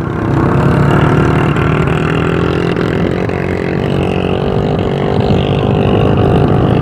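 Motorcycle engine running steadily under load at low speed on a rough, stony dirt track, picking up a little about half a second in.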